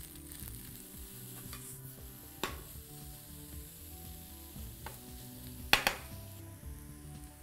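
Grated zucchini and smoked tofu frying with a light sizzle in a nonstick pan while being stirred with a slotted spatula. The spatula knocks against the pan several times, loudest about six seconds in.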